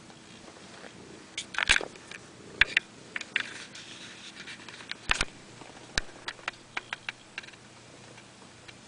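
A run of sharp, irregular clicks and knocks, starting about a second and a half in and stopping about a second before the end.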